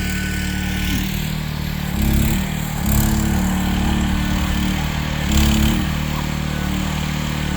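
Small engine of a compact work machine running steadily, revving up briefly under load about two, three and five and a half seconds in.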